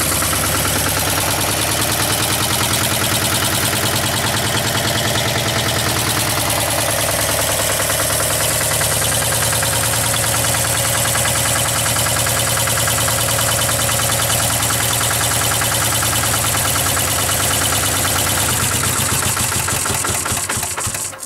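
Lombardini LDA 97 single-cylinder air-cooled diesel engine running steadily at constant speed. Its sound falls away near the end.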